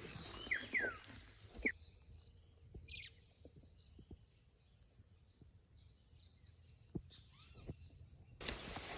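Outdoor riverside ambience: a bird calls with a few short, falling whistled notes in the first couple of seconds, then the sound drops suddenly to a quiet stretch with a thin steady high-pitched tone and a few faint ticks, which cuts off abruptly near the end.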